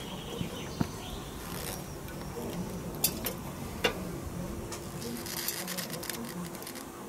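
A few sharp metal clicks and clinks from locking pliers and ribbed rebar knocking against steel as the rebar is bent around a hammer head; the two loudest come a little after three seconds and just before four seconds in.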